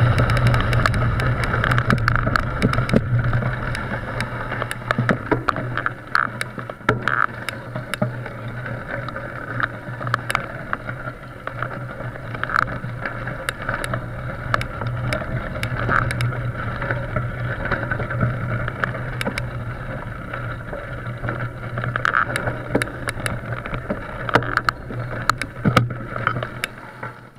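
Muffled, steady rumble of a mountain bike rolling slowly over gravel, picked up through a bike-mounted action camera, with scattered clicks and rattles throughout.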